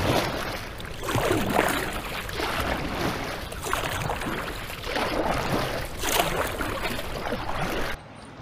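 Kayak paddle strokes splashing and swishing through river water, a stroke about every second and a quarter. The sound stops abruptly shortly before the end.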